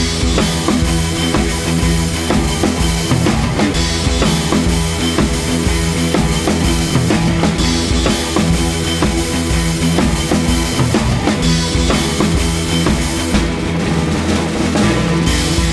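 Background rock music with a drum kit keeping a steady beat.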